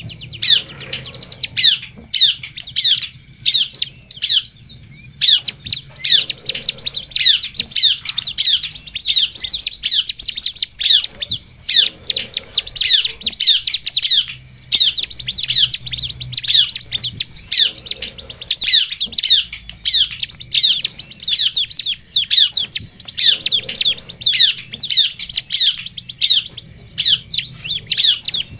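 Bar-winged prinia (ciblek) singing hard: rapid strings of sharp, falling chirps, broken every few seconds by a higher rolling phrase. A steady high-pitched whine sits underneath.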